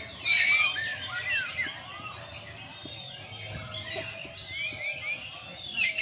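Several caged white-rumped shamas (murai batu) singing together: overlapping whistled phrases and glides, with a loud harsh note about half a second in and a fast run of repeated notes just before the end.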